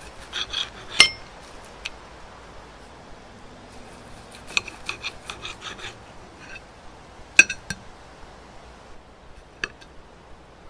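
Knife sawing through a cooked steak with quick scraping strokes against the plate, and metal cutlery clinking sharply on the plate, loudest about a second in and twice more later.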